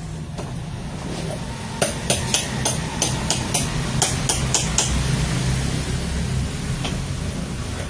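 A run of about a dozen quick, sharp taps, roughly three a second, like a hammer tapping, starting about two seconds in and stopping about five seconds in, with one more tap near the end. A steady low hum runs underneath.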